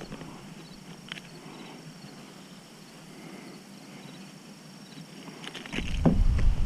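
Quiet riverside ambience with faint insect chirping and a light knock about a second in, then near the end a loud low rumble sets in with a couple of sharp knocks.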